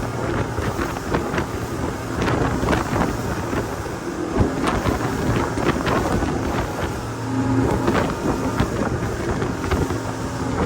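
Speedboat under way, its engine running steadily beneath heavy wind noise on the microphone, with frequent sharp knocks of the hull on the water.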